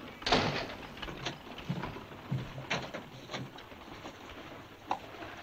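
Irregular knocks and dull thumps from horses and a man moving about at a wooden hitching rail, with the sharpest knock about a third of a second in.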